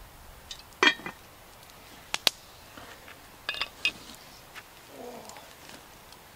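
Cast iron Dutch oven lid clanking as it is set onto the pot, followed by a few sharper metallic clinks as the lid and a metal lid lifter are handled and put down on the stones. The loudest clank comes about a second in, with the clinks over the next three seconds.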